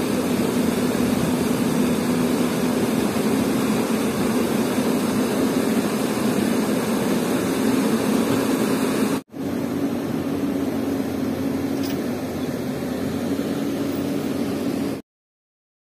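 Diesel engine of a Hyundai 220LC crawler excavator running at a steady pitch over a broad rushing hiss. The sound breaks off for an instant about nine seconds in, then carries on until it cuts out to silence near the end.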